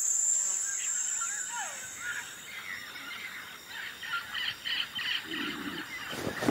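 Film soundtrack ambience: music with bird-like chirps and falling calls. A high steady tone fades out a couple of seconds in, a quick run of short chirps follows, and a sudden loud hit comes near the end.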